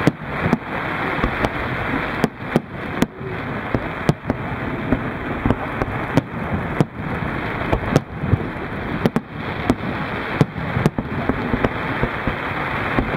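Fireworks display: aerial shells bursting in an irregular series of sharp bangs, roughly one or two a second, over a continuous noisy din.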